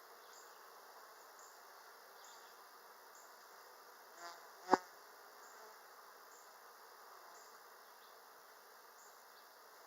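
Honeybees buzzing steadily around an opened hive. A single sharp tap or click stands out about four and a half seconds in.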